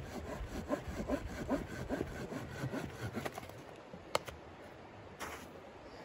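Hand saw cutting wood in quick rasping strokes, about two to three a second, stopping about three seconds in. Two sharp knocks follow.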